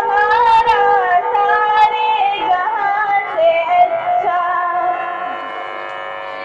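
Music with a woman's voice singing a slow melody. It ends in a long held note that drops in level about five seconds in.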